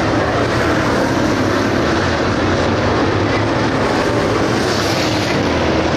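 Field of 602 crate-engine dirt late model race cars running around the track, a steady, unbroken wash of V8 engine noise.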